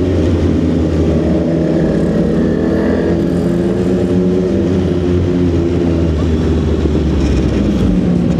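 CFMOTO 675SS inline-three motorcycle engine with an aftermarket exhaust, running steadily while riding, its note shifting slightly near the end.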